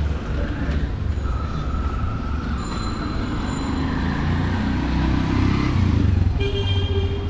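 Busy street traffic: a steady rumble of vehicle engines, with a short horn toot near the end.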